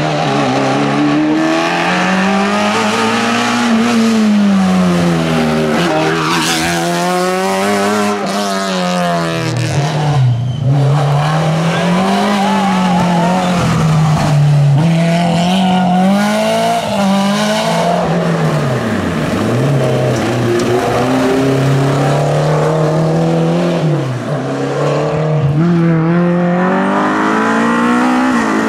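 Rally car engine revving hard, its pitch climbing and dropping again and again as the car accelerates, changes gear and brakes for corners, with some tyre squeal.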